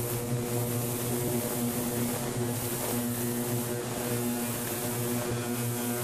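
Morantz M-115 "Mighty One" ultrasonic parts-cleaning tank running: a steady buzzing hum with a hiss over it as the cleaning solution cavitates and churns around a submerged lawnmower engine.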